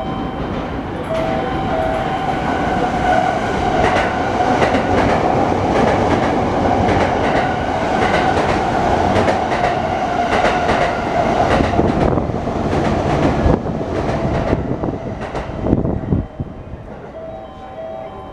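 A Sotetsu electric train passing through the station without stopping, its wheels clattering over the rail joints in a loud, steady run that cuts off suddenly as the last car goes by. Short alternating two-tone beeps sound at the start and again near the end.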